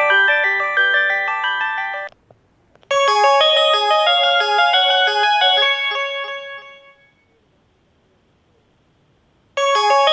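Polyphonic ringtones playing through an LG 245 phone's speaker. One tune cuts off abruptly about two seconds in; after a short gap with a couple of faint clicks, a second melody plays and fades away, and after a pause of about two and a half seconds a third tune begins near the end.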